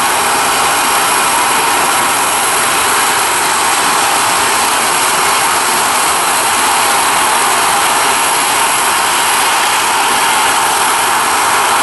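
Airbus A320 jet engines at takeoff thrust, a steady, even noise with no rise or fall as the airliner lifts off and climbs away.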